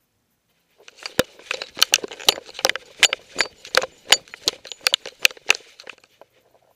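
Sharp clicks coming about three a second, with scraping and rustling between them, from a camera strapped to a moving dog. The clicks start about a second in and stop about six seconds in.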